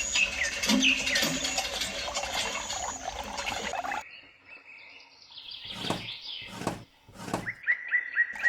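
Birds chirping over a busy background that cuts off suddenly about four seconds in, followed by three short rushes of noise.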